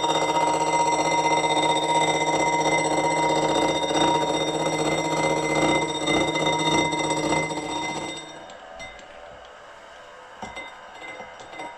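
Milling machine with a gear cutter taking the first, partial-depth cut of a tooth in a metal gear ring, a steady metallic ringing with many tones. It stops about eight seconds in, leaving a few light clicks.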